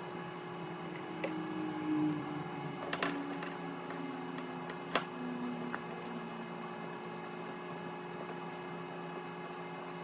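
A long door-panel screw being backed out with a 7mm nut driver: a few light clicks and faint low squeaks, mostly in the first half, over a steady background hum.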